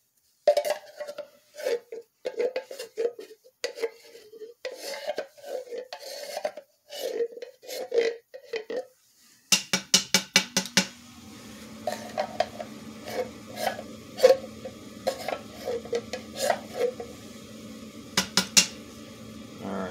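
Wooden spoon scraping pie filling from a can and spreading it over fruit in a foil-lined Dutch oven: a steady run of short wet scrapes and taps, with a quick burst of sharp taps about halfway through.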